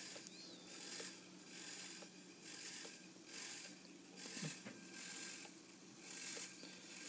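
Faint ratcheting clicks from the throttle stick of a Spektrum DX4e transmitter being moved up and down, in soft swells about once a second; the stick sets the collective pitch of the helicopter's main blades.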